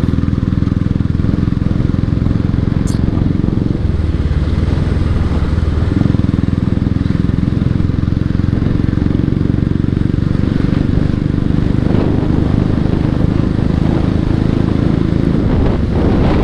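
Motorcycle engine running steadily under way, heard from the rider's seat. The engine note changes for a couple of seconds about four seconds in, then settles back.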